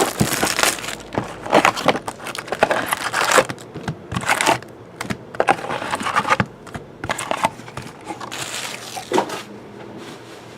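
Plastic wrapping on a box of trading cards being torn and crinkled open, in irregular crackling bursts that thin out near the end.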